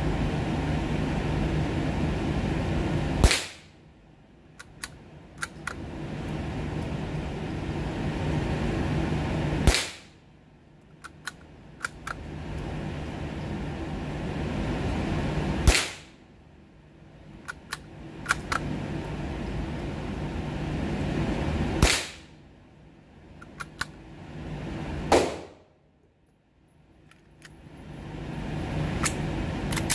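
Savage Mark II F .22 LR bolt-action rifle fired five times, roughly every six seconds, each shot a sharp crack. Fainter clicks follow each shot before the next one.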